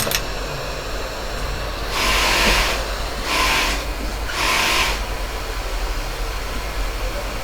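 A hot air rework station hums steadily, with three short bursts of hissing air about two, three and four and a half seconds in.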